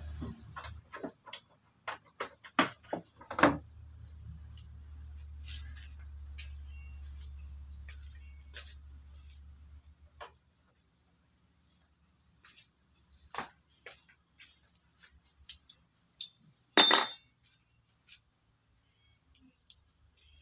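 Scattered metallic clicks and knocks from hand work on a car radiator, clustered in the first few seconds, with one loud ringing metal clank a few seconds before the end.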